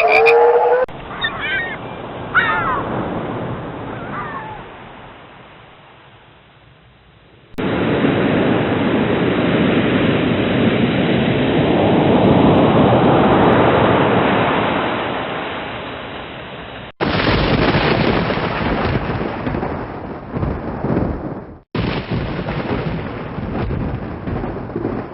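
Frogs croaking for a moment, then a run of separate thunderstorm sound effects, each cut off abruptly. First comes a rain-like hiss with a few high chirps in its first seconds, fading away. Then a long rumble of thunder over rain that swells and dies down, followed by two shorter bursts of thunder and rain.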